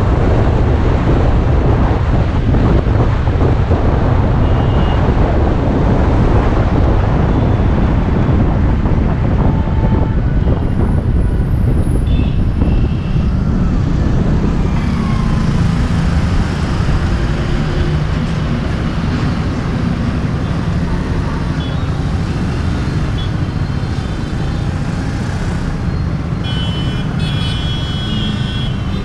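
Wind rumbling on an action camera mounted on a moving motorbike, with city road traffic around it and several short vehicle horn beeps, a cluster of them near the end. The wind rumble is heaviest in the first half and eases as the ride slows.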